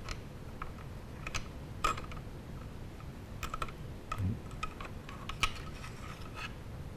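Light, irregular clicks and taps of the AK trigger and disconnector parts against the receiver as they are worked into place by hand, with a low bump about four seconds in.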